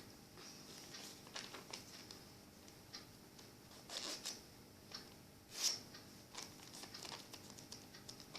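A sheet of paper being folded and creased by hand: faint, irregular rustles and crinkles, with louder swishes about four seconds in and again near six seconds.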